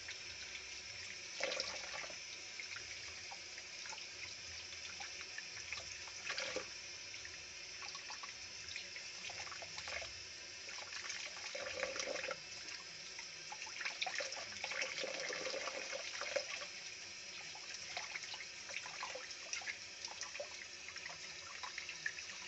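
Tap water running steadily onto raw chicken wings as they are rinsed by hand over a metal bowl, with occasional louder splashes as the pieces are turned under the stream.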